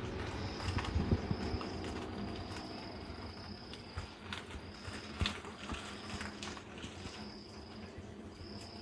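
An insect trilling in repeated high-pitched stretches about a second long, with scattered light clicks and knocks.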